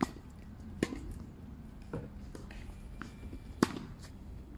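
Sharp pops of a tennis ball being struck by a racket and bouncing during ball-machine practice: four separate hits, the first at the start of a swing and the loudest about three and a half seconds in.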